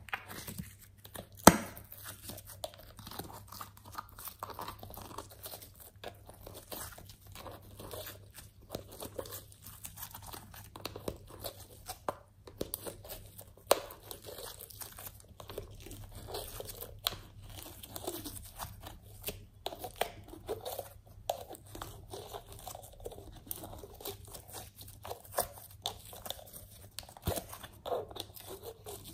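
Glossy slime squeezed by hand out of a soft plastic toy container, with a constant run of irregular sticky crackles and small pops as it stretches and tears. A sharp pop stands out about a second and a half in.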